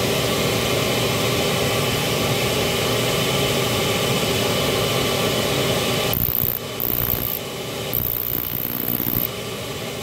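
The burner's combustion-air blower runs with a steady rushing noise. About six seconds in, the ignition transformer arcs from a jumper clip to a ground screw, heard as a very high-pitched hiss in three stretches over about three seconds. The transformer is giving a strong spark.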